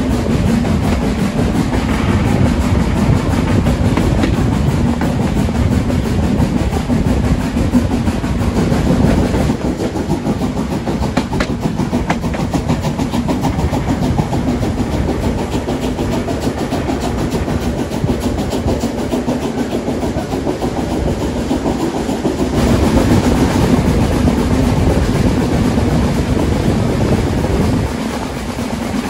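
Narrow-gauge train running on the rails: a steady rumble with the clickety-clack of wheels over the rail joints, a little louder for a few seconds about three quarters of the way through.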